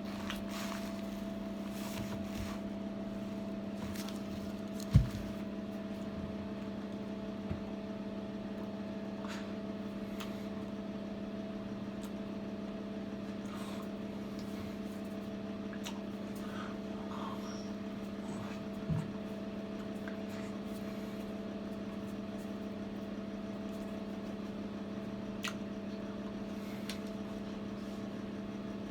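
Steady electrical hum of a running appliance, with a few faint clicks and one sharp knock about five seconds in.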